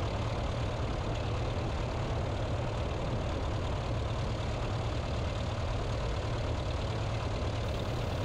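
A 1955 Piper Tri-Pacer's propeller engine idling steadily while the plane taxis at low power.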